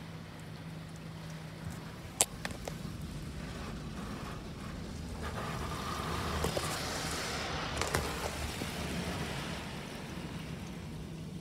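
Ryko Soft Gloss Max automatic car wash heard from inside the car: water spraying and washing over the glass, building up from about halfway through and easing near the end, over a steady low hum. A single sharp click comes about two seconds in.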